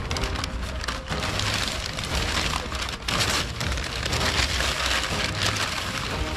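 Crumpled brown kraft packing paper rustling and crackling loudly as it is pulled out of a cardboard box by hand.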